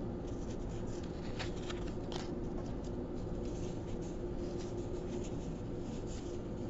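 Pokémon trading cards handled and slid against one another, with faint scattered flicks and soft scrapes over a steady low hum.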